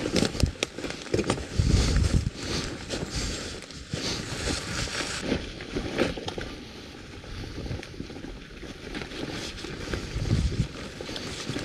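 Fully loaded bicycle going down a rough forest singletrack: irregular rattling and crunching over stones and roots. There are heavy low thumps about two seconds in and again near the end.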